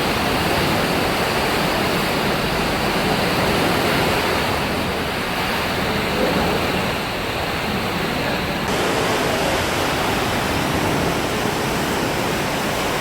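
Water in a cruise ship's swimming pool sloshing and splashing hard as the ship rolls in rough seas, heard as a steady rushing noise. Pool water raging like this is the sign of very big, strong waves outside.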